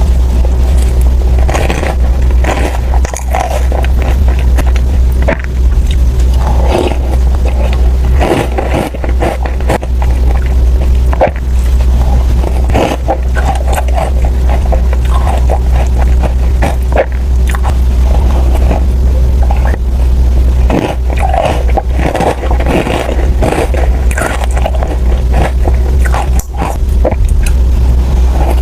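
Close-miked eating sounds: repeated crisp bites and crunchy chewing of a dessert. They sit over a steady low hum.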